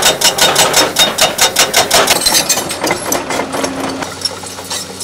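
Hydraulic breaker on a Komatsu excavator hammering into rock, rapid even blows several a second, which die away about halfway through. After that the excavator's diesel engine hums steadily.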